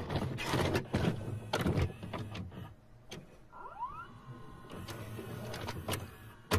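VHS video cassette recorder mechanism: a quick run of clunks and clicks as the tape loads, then a short rising motor whine about three and a half seconds in, and a couple more clicks near the end as it goes into play.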